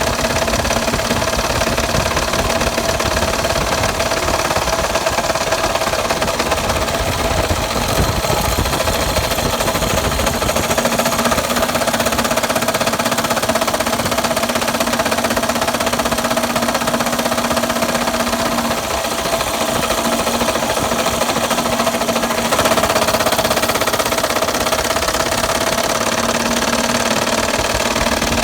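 Engine running with a rapid, steady metallic knocking: rod knock from a blown engine.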